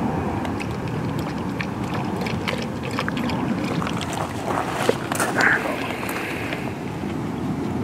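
Steady low rumble of wind on the microphone, with the irregular clicks of a halvstövare hound lapping water from a bowl.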